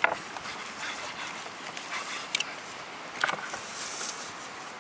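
Knives cutting through lamb on a wooden cutting board: a few sharp knocks and scrapes of blade on board and bone, over the steady rush of a river.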